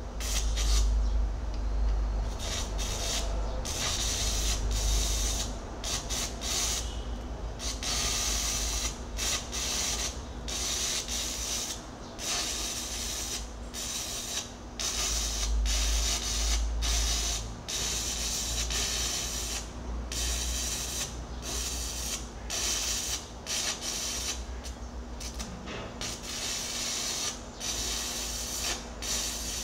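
Electric arc welding on the steel teeth of an excavator bucket: the arc's crackling hiss, broken by many short pauses as the arc stops and restarts.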